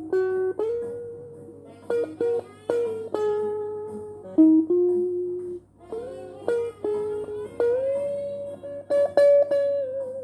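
Guitar played solo, mostly single picked notes that ring out and fade. About seven and a half seconds in one note is bent up in pitch, and near the end a held note wavers with vibrato.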